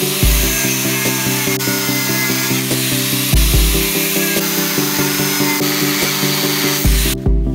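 Angle grinder with a thin cut-off disc cutting through a steel plate, a steady high hiss of the disc in the metal that cuts off near the end. Background music with a bass note every few seconds plays over it.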